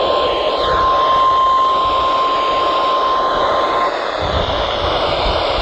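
NOAA Weather Radio 1050 Hz warning alert tone, one steady pure tone over heavy radio static, which cuts off about four seconds in while the static hiss goes on. The tone marks the start of a warning broadcast.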